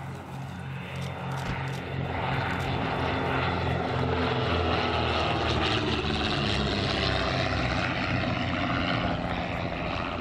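de Havilland DH.88 Comet racer's twin Gipsy Six propeller engines on a low flypast, running with a pulsing beat. It grows louder about two seconds in as the aircraft nears and eases off near the end as it passes away.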